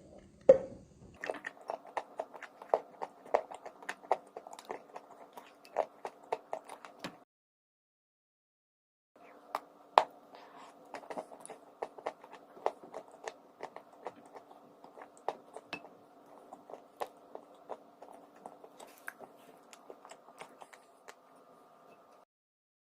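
Close-miked biting and chewing of crunchy chalk and clay: sharp crunches several times a second over a faint steady hum. The sound drops out completely twice, once near the middle and once just before the end.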